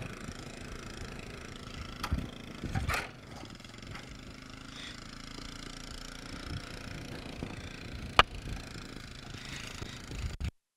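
Steady engine hum of the vehicle towing a Heel-O-Matic roping dummy at a walking pace, with a couple of thumps about two and three seconds in and a sharp click a little after eight seconds. The sound cuts in and out in short gaps near the end.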